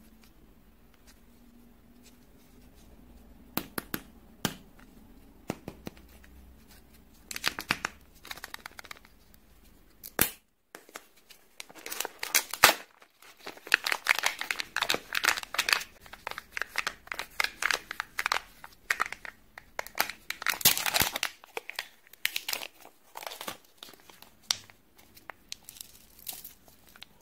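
Foil and plastic-film wrapping of a Kinder Joy egg being torn and peeled off, crinkling. The crinkles are sparse at first, with one sharp click about ten seconds in, then come thick and fast through the middle before thinning out near the end.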